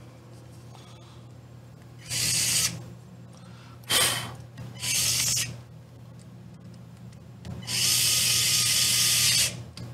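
Small electric screwdriver with a hex bit running in short bursts as it drives a screw into an RC crawler's transmission mount: three brief runs in the first half, then a longer run of about two seconds near the end.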